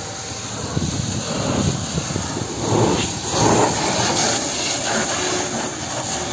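Fire hose jet spraying water onto a burning truck's cab and engine bay: a loud, steady rushing hiss with spattering, swelling about three seconds in.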